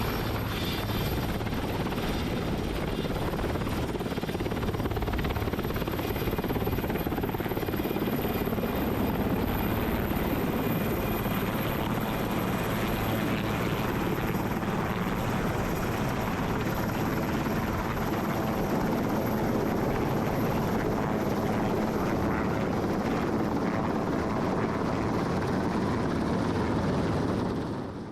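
Sikorsky S-61N helicopter in flight, its twin turboshaft engines and rotor running steadily with a thin high whine over the rotor noise, fading out at the very end.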